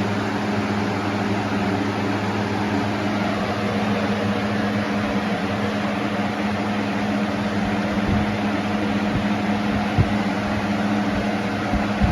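Galaxy 4733 box fan with a swapped-in shaded-pole Weather Shield motor running on high: a steady rush of air over a strong motor hum, really loud. A few short low thumps come in the second half.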